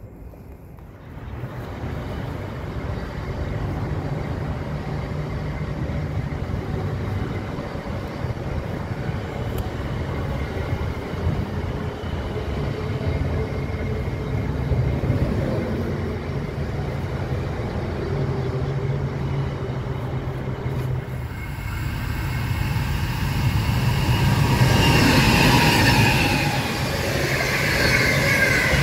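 Trains running past on the line, a steady rumble with a low hum. Near the end a freight train's wagons roll past close by, louder, with high squealing from the wheels.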